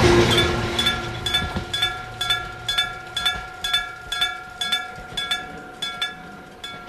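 Electric gong level-crossing warning bell striking about twice a second with a ringing tone, the strikes growing fainter and a little further apart until they stop near the end, each leaving a lingering ring: the bell winding down as the crossing clears. The passing train's rumble fades away in the first second or two.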